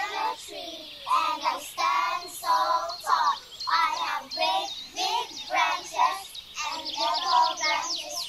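Young children singing a song together in unison, in short sung phrases with brief gaps between them.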